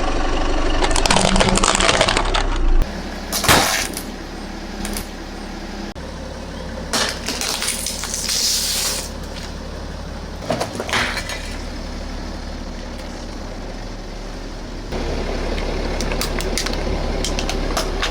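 A car's engine runs low as its tyres roll over and crush objects, giving sharp cracks about three and a half seconds in and again around eleven seconds, and a hiss for a second or two around eight seconds in. The sound changes abruptly between edited shots.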